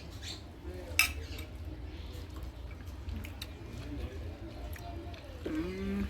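Cutlery clinking on a plate while eating, with one sharp clink about a second in and a few lighter taps; faint voices in the background near the end.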